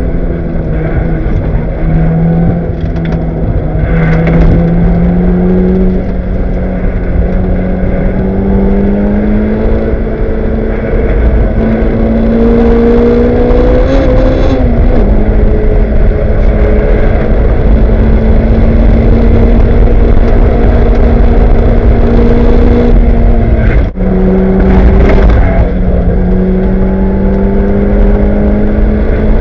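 Lotus race car's engine under load, heard from inside the cockpit. Its note climbs slowly, wavers and dips briefly about halfway through, then drops abruptly at a gear change near the end and climbs again.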